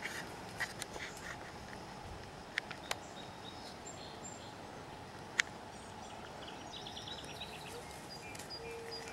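Outdoor ambience with wild birds calling faintly: thin high chirps and a short rapid trill, over a steady low hiss. A few sharp clicks stand out, the loudest a little over halfway through.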